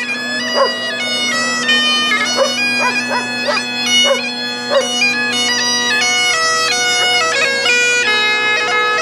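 Bagpipes playing a tune over steady drones; one of the low drones drops out about six seconds in.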